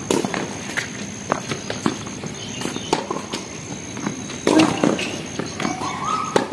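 Tennis rally on a hard court: sharp pops of racket strings hitting the ball and of the ball bouncing, with players' footsteps between them. The loudest hit comes about four and a half seconds in.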